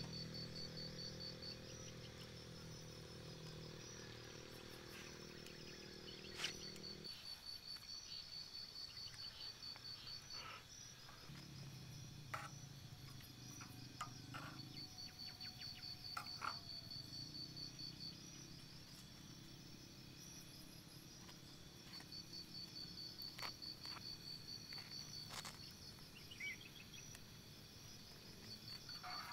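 Crickets chirping in repeated trills of a few seconds each, with scattered light clinks and taps of a metal knife against a small pot and grill.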